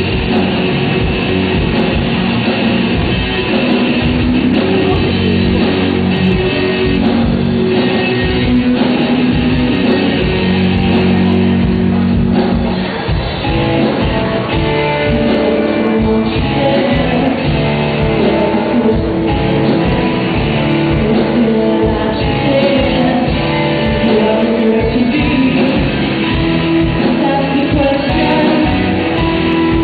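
Amateur rock band playing live: electric guitars, bass guitar and drums, with a voice singing over them.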